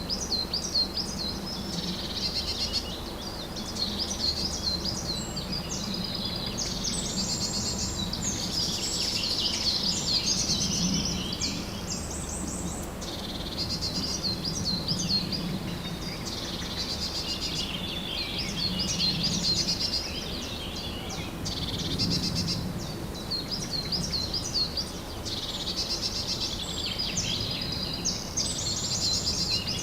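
Several songbirds singing at once in a dense, continuous chorus of quick chirps and trills, over a faint low steady hum.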